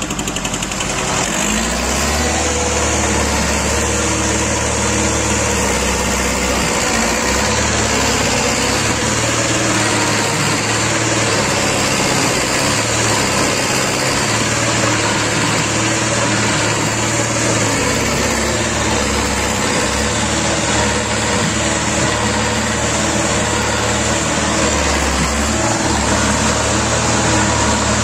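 Two-wheel-drive farm tractor's diesel engine running steadily under heavy load, its pitch shifting a few times, as the tractor strains to pull a stuck trailer out of soft mud.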